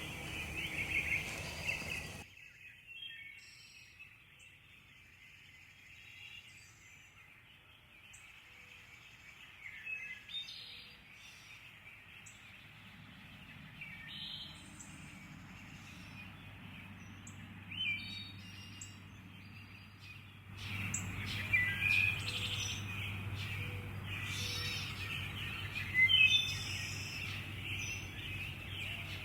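Small birds chirping and singing in short high calls. The fuller sound at the start cuts off abruptly after about two seconds, and a low steady hum with busier chirping comes in near the end.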